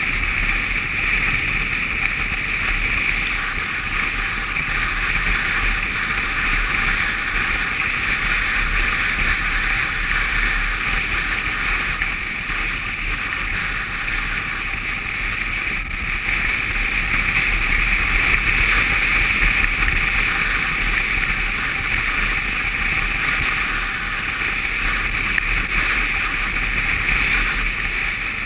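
Steady riding noise recorded on a moving motorcycle: wind rushing over the camera, with the engine and tyre noise running underneath, unchanging throughout.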